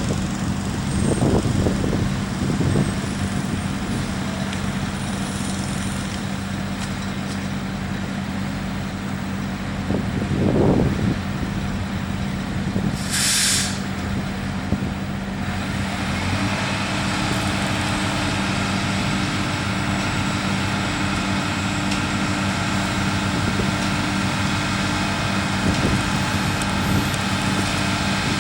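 Heavy diesel truck engines running at a concrete pour, with a short air-brake hiss about halfway through. A steadier, higher engine hum joins soon after, as if a truck or the concrete pump picks up load.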